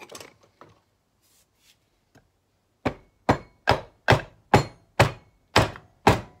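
A run of about eight sharp hammer taps, a little over two a second and starting about 3 s in, on a Stihl TS350 crankcase to drive the tight side of the case halves together over the crankshaft.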